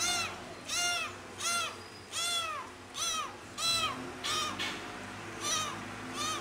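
Young tabby kitten meowing loudly and repeatedly, about eight or nine short high meows that each rise and fall in pitch, one roughly every three-quarters of a second: a kitten calling for its missing mother.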